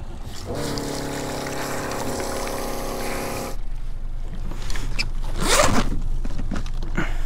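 Electric deep-drop fishing reel motor winding line in for about three seconds: a steady whir that spins up about half a second in and cuts off sharply. A few knocks and a brief loud scrape follow near the end.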